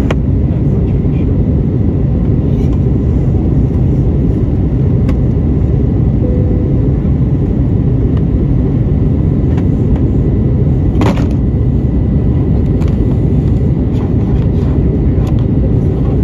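Steady cabin noise inside an Airbus A320neo airliner in flight: an even, deep rumble of engines and rushing air, with one short scratchy noise about eleven seconds in.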